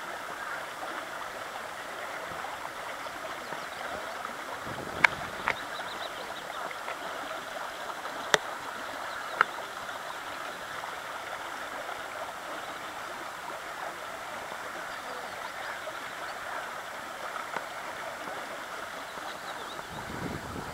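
Steady outdoor background hiss at the edge of a pond, broken by four short sharp clicks, two of them about a quarter of the way in and two near the middle.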